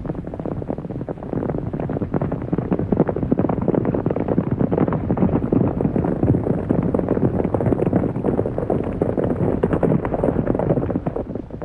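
A herd of horses galloping: a dense, continuous rumble of many hoofbeats that sets in abruptly and fades out near the end.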